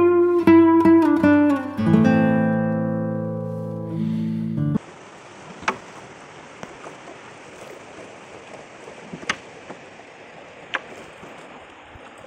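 Acoustic guitar music, plucked and strummed, that cuts off suddenly about five seconds in. It gives way to the steady rush of river water around a coracle, with a few sharp knocks spaced seconds apart.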